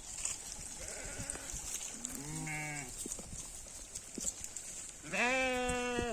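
Goat bleating twice: a short call about two seconds in, then a louder, longer one held steady for about a second near the end.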